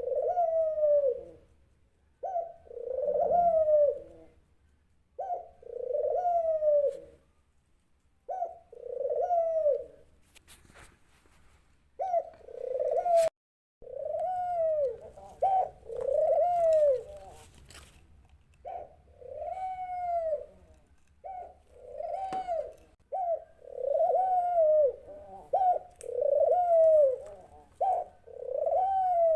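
A dove cooing: a run of soft, arched coo notes repeated every couple of seconds, coming closer together in the second half.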